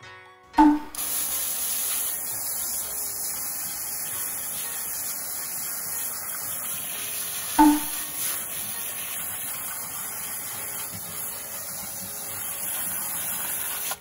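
Hose spray nozzle jetting water onto fresh mortar as a steady hiss, washing off the surface paste that a retarder has kept from setting so the sand and stones in it show. It starts with a short sharp sound about half a second in, and a second one comes about halfway.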